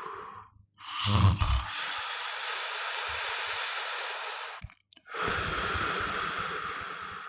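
A person snoring: a low, fluttering snore about a second in that runs into a long breathy rush of air, a short pause, then another long breathy breath that fades.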